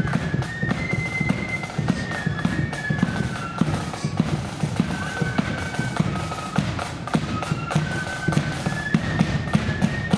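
Marching flute band playing a tune. Flutes carry a melody of held high notes over rapid, continuous side-drum strokes.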